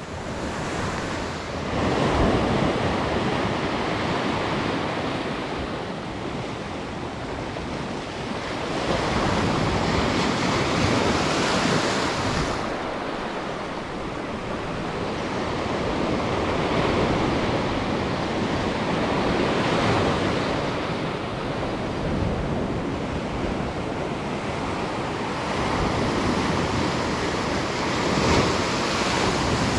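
Ocean surf breaking along the shore, swelling and easing every several seconds, with wind on the microphone.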